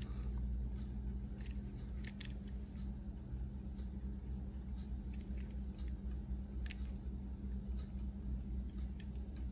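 Faint scattered clicks and taps of a die-cast toy car with plastic parts being turned over in the fingers, a few clustered about two seconds in, over a steady low hum.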